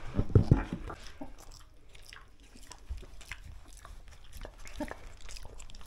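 Pet pig crunching and chewing Cheerios picked up off the carpet: many short crisp crunches, with a few heavier thumps in the first second.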